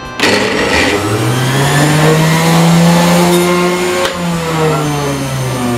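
Asanzo BF-400S food processor's 450 W motor, fitted with its juicer attachment, switched on with a click and whirring up in pitch. After another click about four seconds in, its pitch slowly sinks.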